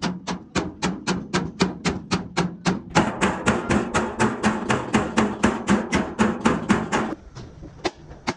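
Rapid, steady hammer blows on a bent sheet-metal truck fuel tank, beating out the dent, about four or five blows a second; the run of blows stops about seven seconds in, leaving a few scattered strikes. A steady low hum runs underneath.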